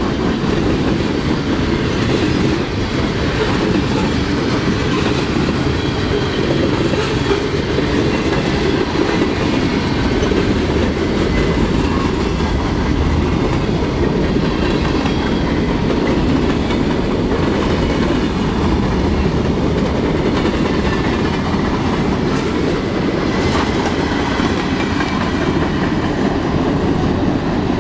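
Freight cars of a mixed manifest train rolling past at close range: a steady, continuous rolling noise from the steel wheels on the rails, with irregular clacks as the wheels cross rail joints.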